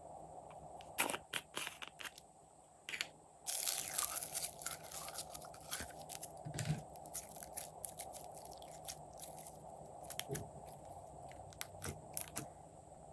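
Glossy slime being squished and mixed by hand, giving a run of sticky crackles and clicks with a dense crackling stretch a few seconds in.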